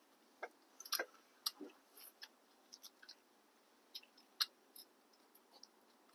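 Scattered light clicks and taps of small parts and wiring being handled and fitted on a motorcycle, irregular, with the sharpest clicks about a second in and again later on.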